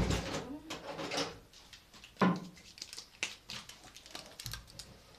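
A sharp knock at the start, then scattered clicks, taps and rustles of kitchen things being handled on a table while ingredients are measured out.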